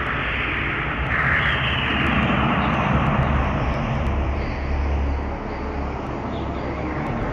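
Aircraft engine droning as it passes, a deep rumble that swells mid-way with a whine that comes in about a second in and slowly falls in pitch.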